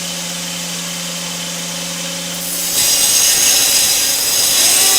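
Angle grinder fitted with a tungsten carbide cutting attachment: the motor runs with a steady hum, then a little under three seconds in the attachment bites into wood with a loud, rasping hiss.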